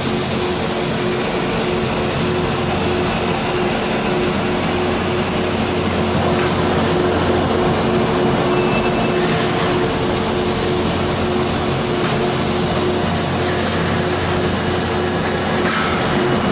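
Peddinghaus BDL 1250/9A structural steel drilling machine running with a steady hum. Its spindle drill cuts through steel plate for the first several seconds, goes quieter as the drill lifts out and moves, then starts cutting a new hole near the end.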